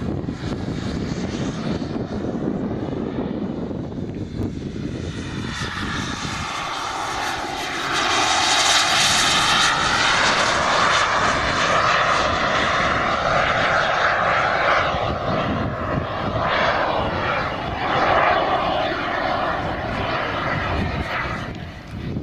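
Radio-controlled scale model Fouga Sylphe flying past under its small jet engine: a rushing hiss with a faint whine that swells about eight seconds in as it comes close, then eases off near the end.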